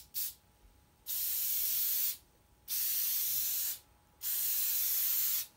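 Aerosol shellac being sprayed onto a cello's wooden rib: two quick short puffs, then three hissing sprays of about a second each with brief pauses between.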